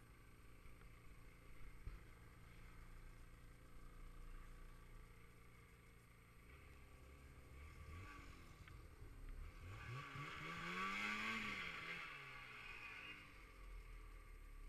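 Snowmobile engine running with a low hum, then rising in pitch and getting louder to a peak about two-thirds of the way through before easing off again.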